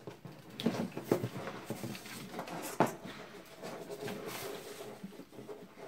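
Handling noise from a foam panel with a PC fan mounted in it being moved and its cables plugged in: rubbing and creaking with several knocks and clicks, the sharpest one near the middle.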